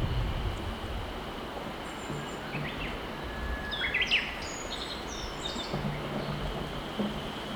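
Clear mountain river flowing with a steady rushing murmur. A small songbird gives a quick run of short, high chirps from about two to five seconds in.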